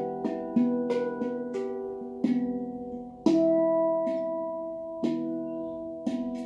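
Steel handpan played with the fingers: a melody of single struck notes that ring on, several in quick succession early on, then a louder note about three seconds in left to ring before the next strikes.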